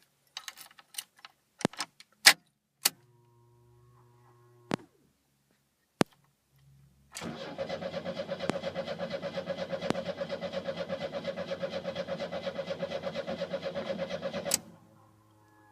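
Several clicks and a faint hum lasting about two seconds. Then the 1984 Pontiac Fiero's Iron Duke 2.5-litre four-cylinder cranks on the starter for about seven seconds in an even, rapid rhythm without catching, and stops abruptly. It is a no-start that the owner suspects comes from a bad fuel pump.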